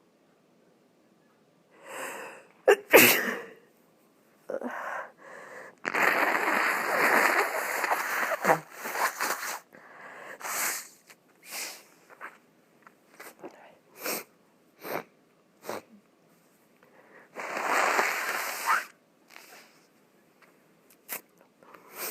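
A person sneezing and blowing their nose with one nostril blocked. A sharp sneeze comes about three seconds in and is the loudest sound. Two long blows follow, one in the middle and one near the end, with short snorting puffs and sniffs between them.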